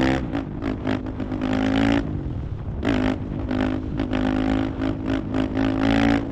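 Husqvarna FE 501's single-cylinder four-stroke engine running at lower revs after the throttle comes off. The engine note pulses unevenly and swells briefly twice, about halfway through and near the end.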